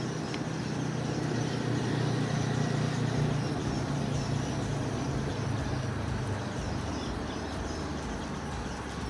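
A distant engine droning steadily, loudest about three seconds in and then slowly fading, over outdoor background hiss.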